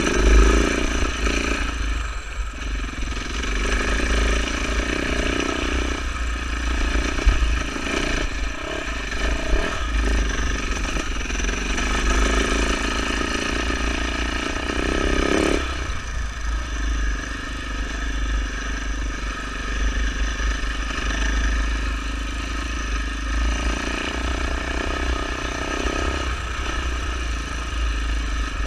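Husaberg FE450 enduro motorcycle's single-cylinder four-stroke engine running under way on a dirt trail, its note rising and falling with the throttle. The note changes sharply about halfway through.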